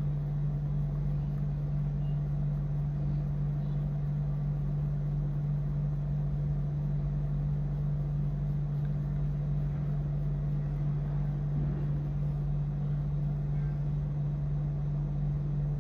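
A steady low hum with a faint rumble beneath it, unchanging throughout.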